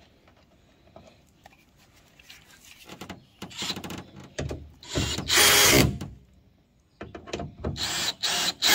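Cordless drill/driver running in short bursts while driving the 8 mm bolts back into a pickup's taillight housing: several brief runs, the longest and loudest near the middle, then more after a pause of about a second.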